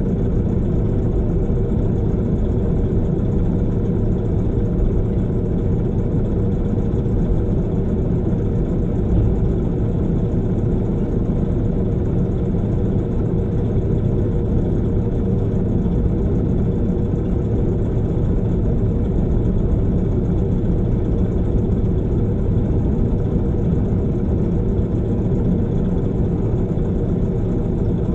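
Log truck's heavy diesel engine idling steadily, a constant low drone that does not change.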